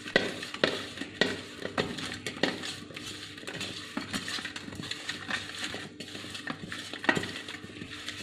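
Hand rubbing spice-coated pieces of dry mackerel around a stainless steel bowl, so that the fish and fingers scrape and knock against the metal. The knocks come about every half second in the first few seconds, with one more strong knock near the end.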